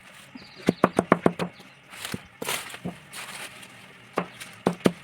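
Knife chopping banana stem and greens on a cutting board, in quick runs of sharp strokes about six a second, with a brief rustling scrape between the runs.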